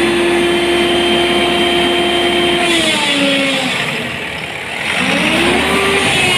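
Crane engine running at high revs with a steady whine that falls away about three seconds in, drops lower, then climbs again about five seconds in.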